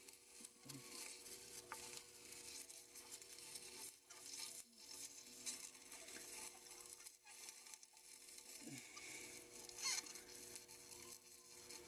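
Faint sizzling and crackling of dry ice sublimating against the cold metal parts of a hydraulic steering valve, with a few light clicks of parts being handled.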